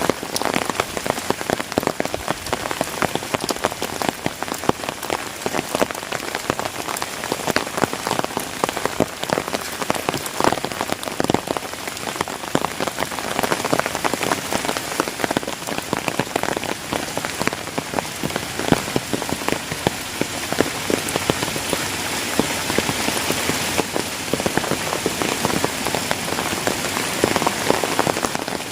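Heavy rain falling steadily, a dense hiss with many individual drops heard as sharp taps close by.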